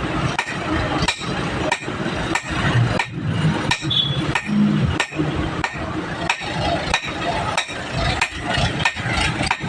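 Blacksmith's hammer striking metal in a steady rhythm, about two blows a second, forging a rusted steel rod into a spearhead.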